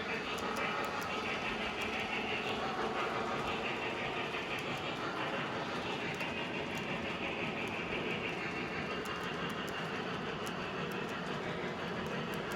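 Model train running steadily on the layout's track: a continuous motor and wheel running noise with scattered light clicks.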